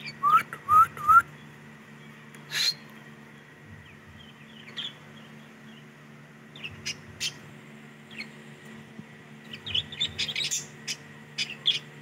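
Budgerigars in an aviary calling: three quick rising chirps at the start, a sharp call a couple of seconds later, then scattered short chirps building to a flurry of chattering near the end. A steady low hum sits underneath.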